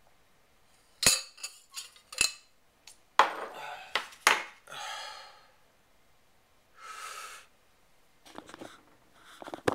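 A metal knife clinking sharply against a drinking glass of water, about a second in, two seconds in, four seconds in and again near the end. Between the clinks come deep, audible breaths in and out.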